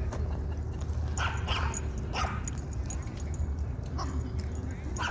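A dog barking in short, sharp barks, four or five times with pauses between them.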